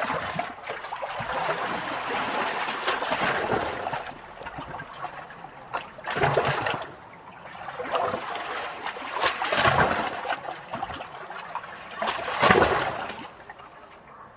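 Small, calm sea waves lapping and splashing against rocks, heard close up, in uneven surges with the strongest splashes about six, nine and twelve seconds in.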